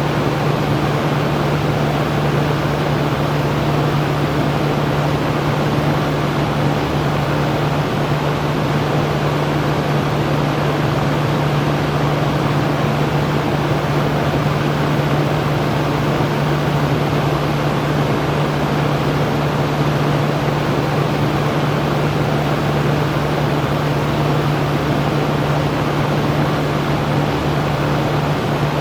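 Electric fan running steadily: an even whooshing hiss of moving air with a steady low hum under it.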